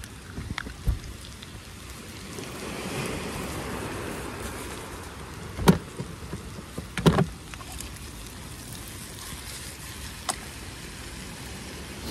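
Diced potatoes, onion, garlic and pancetta sizzling steadily in butter and oil in a frying pan, with a few sharp knocks, the loudest two about six and seven seconds in.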